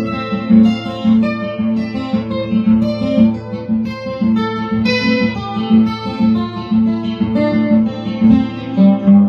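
Steel-string acoustic guitar played solo: a quick run of plucked notes ringing over low bass notes, with sharp accented strikes every second or so.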